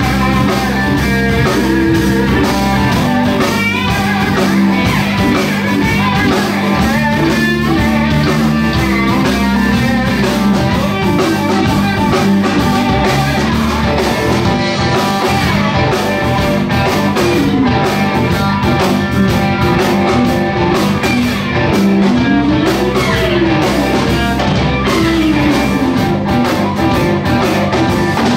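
Live electric blues boogie played by a band of two electric guitars, electric bass and drums, with a steady beat and a lead guitar line whose notes bend and slide up and down.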